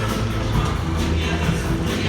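Live music from a band, with sustained notes over a heavy bass.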